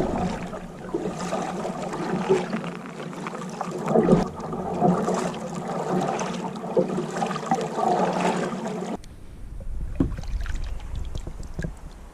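Kayak paddle strokes, with water splashing and washing against the hull in uneven surges. About nine seconds in it changes suddenly to a quieter low rumble with a few small clicks.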